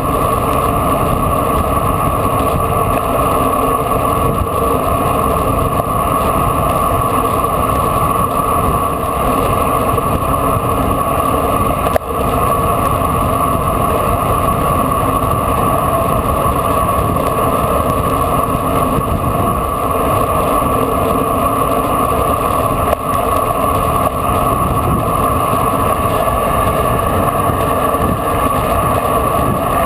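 Steady rush of wind over a bike-mounted camera's microphone while descending a mountain road on a bicycle, with brief dips about twelve and twenty-three seconds in.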